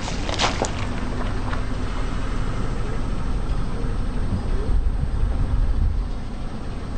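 A car rolling slowly over objects, with a steady low rumble and a few sharp crackles in the first second.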